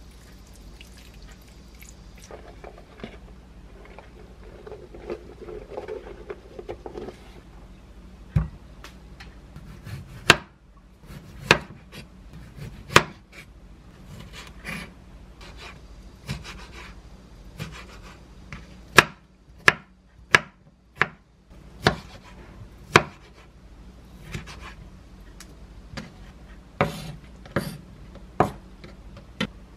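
Chef's knife cutting and dicing plums on a wooden cutting board: a run of sharp, irregular knocks as the blade strikes the board, with a quick burst of four strikes about two-thirds of the way through.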